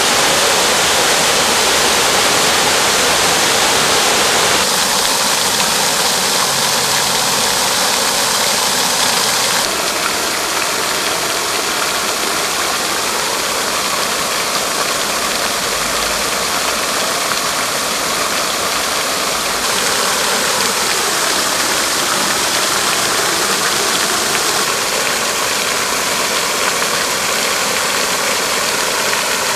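Water from public fountains splashing and rushing in a steady hiss. The sound shifts abruptly several times as one fountain gives way to another.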